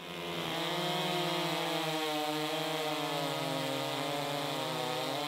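Gas chainsaw engine running at high revs, cutting through a log with a steady, unbroken engine note that fades in at the start.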